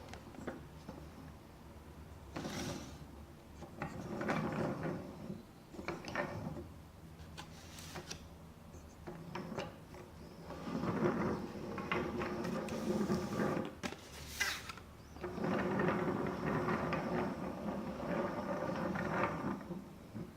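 Wooden toy train rattling along a wooden track in several runs, the longest two lasting about three to four seconds each, with short clattering knocks between them.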